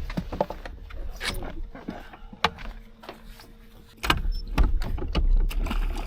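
Clicks and knocks of gear on a fishing boat, with a faint steady hum in the first half, then a heavy low rumble from about four seconds in.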